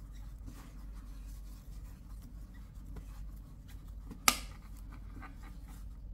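Faint rubbing and light ticking of a metal crochet hook pulling 3 mm flat polyester cord through stitches, with one sharp click about four seconds in.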